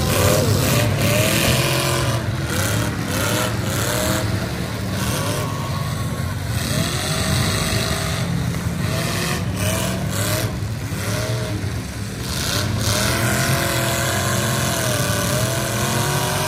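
Several demolition derby farm trucks' engines revving up and down over a steady low rumble, with sharp bangs of trucks colliding now and then.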